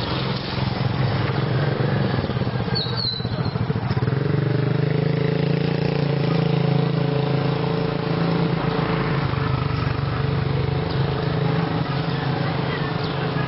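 A small engine running steadily, its hum growing firmer about four seconds in.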